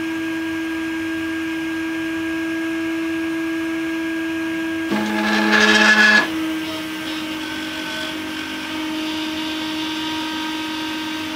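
3D printer's stepper motors whining in steady tones as the print head and bed move, with a louder, faster move about five seconds in that lasts just over a second.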